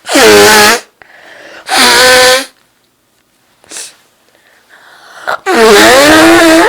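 Three loud, high-pitched voiced sneezes from a woman, each after a short intake of breath; the third is the longest.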